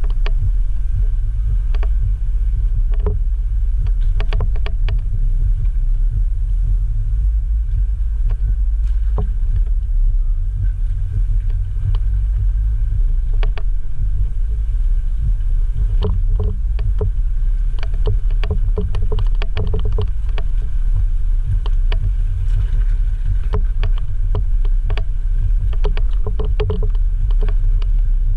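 Jeep Wrangler JL Rubicon crawling along a rough off-road trail: a steady low rumble with frequent short knocks and rattles, more of them in the second half.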